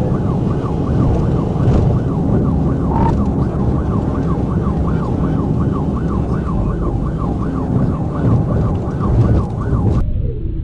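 Police car siren on its fast yelp setting, rising and falling about three times a second, over loud engine and road noise from the cruiser driving in pursuit. Near the end it cuts to a slower wailing siren.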